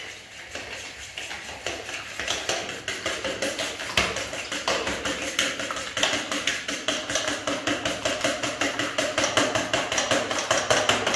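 Fork beating raw eggs in a plastic mixing bowl: a quick, steady rhythm of clicks as the fork strikes the side of the bowl with each stroke.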